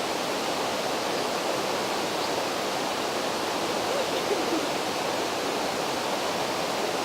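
Rushing water, a steady, even noise of a stream or small waterfall.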